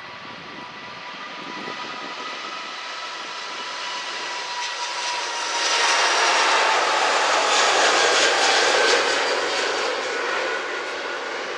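Airbus A380 jet engines at take-off thrust on the take-off roll, a rushing roar with a whine that slowly falls in pitch. It swells to its loudest about six seconds in as the aircraft passes close, holds for a few seconds, then eases off.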